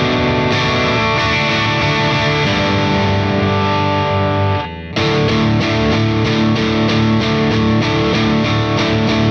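Electric guitar, a Squier Classic Vibe Telecaster on its bridge pickup, playing chords through a Peavey Bravo 112 all-tube combo's clean channel pushed by a Nobels ODR-1 overdrive pedal, heard through a miked Vintage 30 speaker: a mild rock overdrive. Held, ringing chords give way to a brief muted break just under five seconds in, then to quicker rhythmic strumming.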